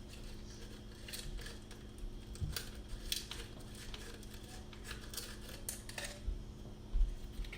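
Scattered light clicks and crackles of small kitchen items being handled by hand, over a steady low hum.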